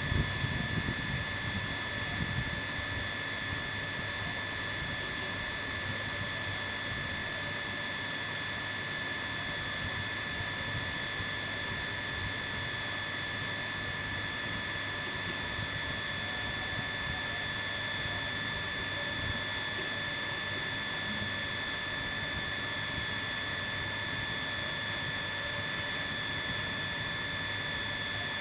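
A machine running steadily: a constant hiss with a high, steady whine over it, unchanging throughout, with a few slightly louder knocks in the first couple of seconds.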